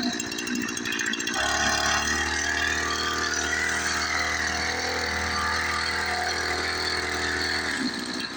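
Small engine of a motorized backpack sprayer running. About a second and a half in it settles into a steady, even note, then drops back to a rougher run near the end.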